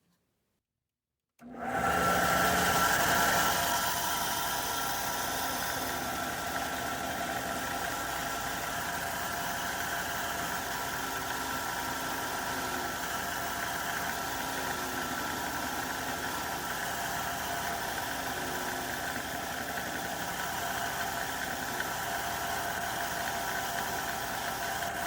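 Electric belt grinder starting up and running steadily, loudest in its first couple of seconds, cutting in abruptly after a short silence.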